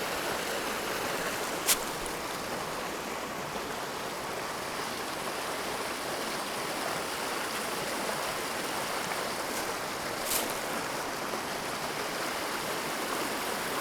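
Small mountain creek running, a steady wash of flowing water. Two brief sharp clicks come through it, one about two seconds in and one about ten seconds in.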